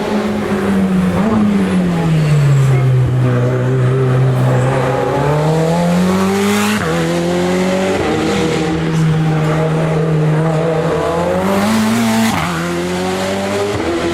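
Race car engine on a hill climb, its note sinking as it slows, then climbing hard under acceleration and dropping sharply at two upshifts, about halfway through and near the end.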